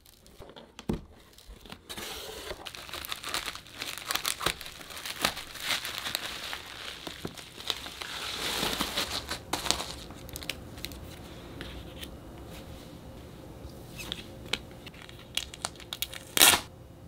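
Plastic bubble wrap crinkling and rustling as it is pulled off a book, then lighter handling of plastic with scattered small crackles and one short, louder crinkle near the end.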